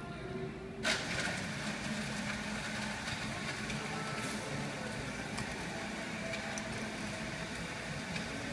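A steady rushing noise that sets in abruptly about a second in and holds, over a low hum, with a few faint clicks.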